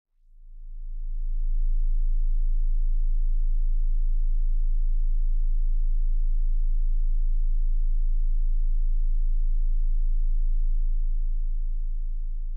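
Deep, low electronic drone: a steady bass tone with a slight even wavering. It swells in over the first second or so and starts to fade away near the end.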